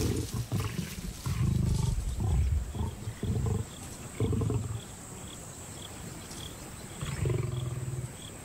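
Lions growling over a carcass in a series of deep, loud bursts: a young male lion muscling in on feeding lionesses, a show of hunger-driven aggression at the kill.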